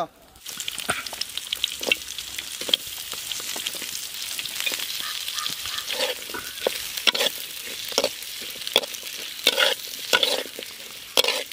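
Sliced onions sizzling in hot mustard oil in a blackened kadai, the sizzle starting about half a second in. A spatula scrapes and clacks against the pan at irregular moments as the onions are stirred.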